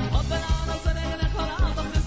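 Upbeat music with a steady fast beat, about two to three strokes a second, under a melody line.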